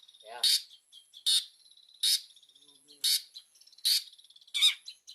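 Long-tailed shrike (cendet) giving a series of short, harsh calls, six of them, one about every 0.8 seconds.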